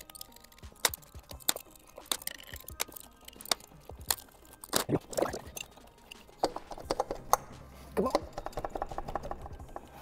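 Irregular clicks, clinks and knocks of hand tools working on metal engine parts as intake manifold bolts are undone, coming quickly one after another.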